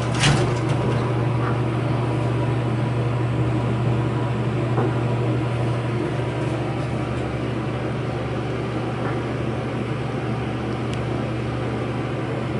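Steady drone of an elevator cab's ventilation fan, loud enough to be called annoying, with a couple of sharp clicks right at the start.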